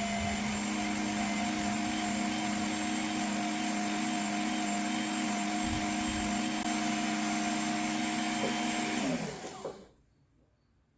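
Work Sharp Knife and Tool Sharpener's electric motor and abrasive belt running steadily with a hum and a whir, then switched off about nine seconds in and spinning down to a stop.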